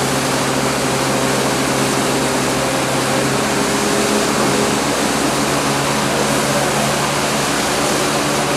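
Loud, steady machinery noise from a cruise ship's deck: an even rush with a low hum underneath.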